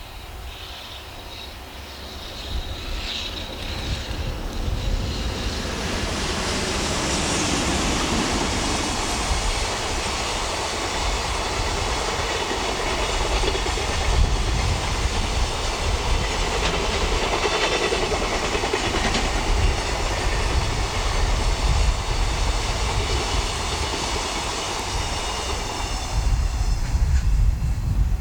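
Container freight train hauled by an EH500 electric locomotive running past, its wheels clattering over the rail joints. The sound builds over the first several seconds, then holds steady and loud as the long train of wagons rolls by.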